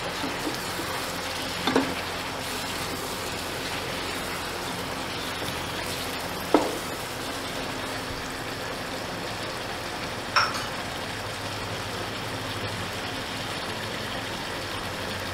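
Chicken pieces frying with ground spices in oil in a non-stick pot, a steady sizzle as a wooden spatula stirs them. Three sharp knocks stand out: one near the start, one about halfway, and one about two-thirds of the way through.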